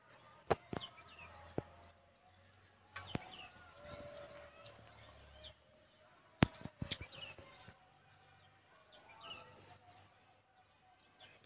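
Outdoor ambience of small birds chirping, broken by several sharp clicks and knocks, the loudest a little past halfway.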